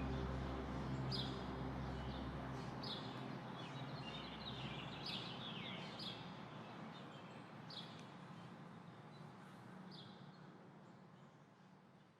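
Small birds chirping, short falling chirps every second or two, over a steady rushing background like running water. A low music bed fades out in the first few seconds, and the whole soundtrack fades down toward the end.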